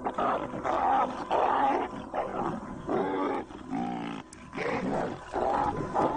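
Wild animals growling and bellowing during a lion–Cape buffalo fight: a rapid run of rough, pitched calls, two or three each second.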